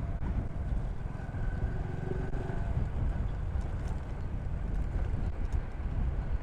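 Motorcycle engine running as the bike is ridden, a steady low rumble with a faint pair of steady tones about a second or two in.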